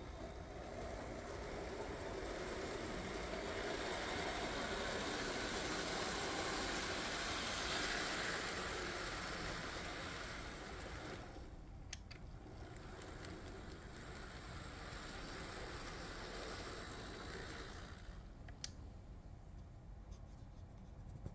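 Märklin Z-scale Class 194 Crocodile model electric locomotive running with a freight train: the steady whirring hiss of its small motor and wheels on the track. It grows louder toward the middle, drops away twice, and is fainter near the end, with a couple of faint clicks.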